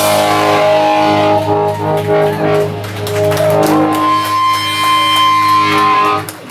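Live rock band music: electric guitar chords held and ringing out in long sustained notes, with a bent note about four seconds in.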